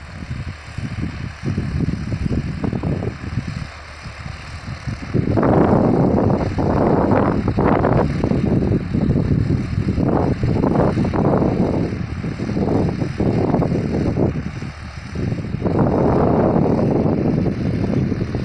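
A John Deere 5405 tractor pulling a rotavator, heard from across the field as a distant engine rumble. Wind rumbles on the microphone over it, coming in loud uneven gusts from about five seconds in.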